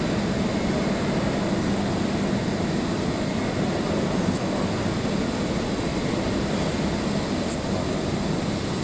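Steady drone of running industrial machinery with a low hum, unbroken throughout.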